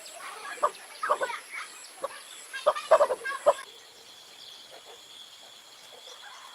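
Farm poultry calling in a run of short, loud bursts. A little over halfway through, the sound cuts abruptly to a quiet, steady high insect drone.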